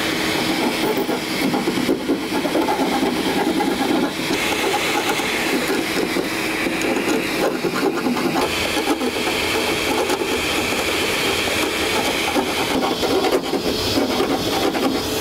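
Vacuum cleaner running steadily, its hose nozzle held at a freshly drilled hole in a sheet-metal cabinet, while a hand file scrapes burrs from the hole's edge.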